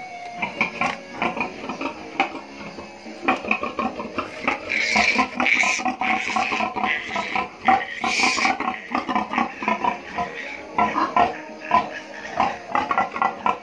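Newborn premature piglet squealing and grunting as it is handled, in rapid short calls. Louder shrill squeals come about five to six seconds in and again near eight seconds.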